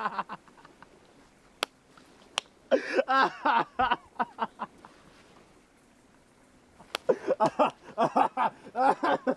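A man laughing heartily in bouts of quick repeated 'ha' pulses: a short bout about three seconds in and a longer one from about seven seconds, with a quiet stretch between. A few sharp clicks are heard along the way.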